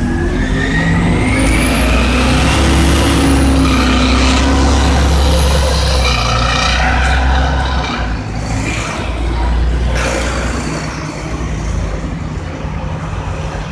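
A 2003 Orion VII CNG transit bus pulling away from a stop and accelerating. A deep engine drone runs under a high whine that climbs, dips and climbs again a few times before fading as the bus moves off.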